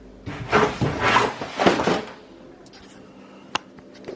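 Cardboard covering being handled and moved, rustling and scraping for about two seconds, then a single sharp click.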